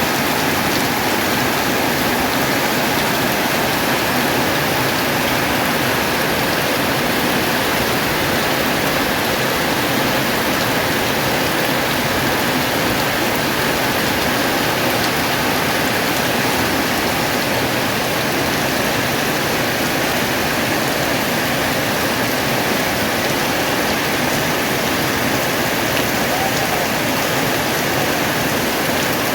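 Heavy rain falling steadily, an even hiss that holds without let-up.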